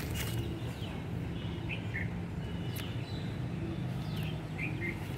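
Small birds chirping: a scattering of short, high calls, several sliding downward, over a steady low background rumble.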